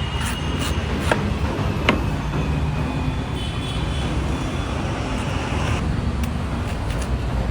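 Steady street traffic noise, with a few sharp knocks or clicks, the loudest about two seconds in.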